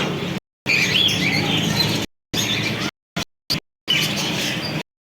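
Birds chirping: repeated short calls that rise and fall in pitch. The sound cuts out abruptly to silence several times, about a second in, twice around three seconds, and near the end.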